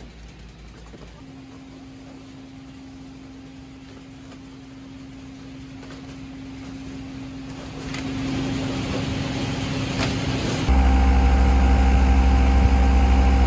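Packing-line machinery humming steadily with one low tone. About eleven seconds in, a much louder potato harvester engine takes over, running steadily with a deep rumble.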